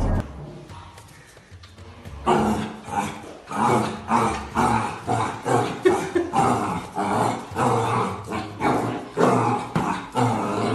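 A black puppy barking over and over at its reflection in a mirror, short barks at about two a second, starting about two seconds in.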